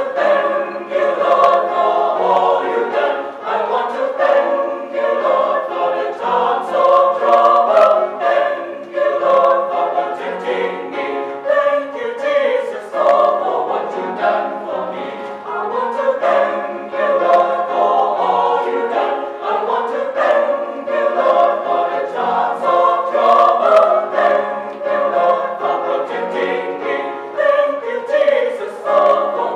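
Mixed church choir of men's and women's voices singing together.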